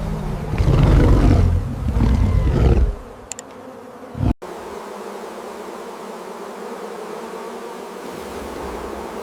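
A deep roar lasting about three seconds, then a sharp hit about four seconds in, followed by the steady buzz of a bee swarm.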